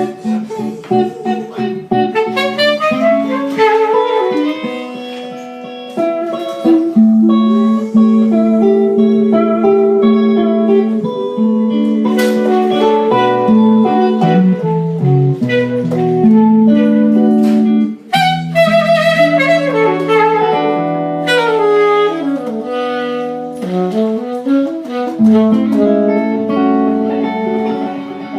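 A band playing an instrumental passage of a slow soul-blues ballad: a held, sustained lead melody over accompaniment, with no singing.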